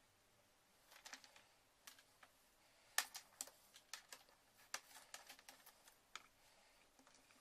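Faint, irregular clicks and taps of a MagSafe laptop charger cable being handled and flexed by hand, bunched in the middle few seconds.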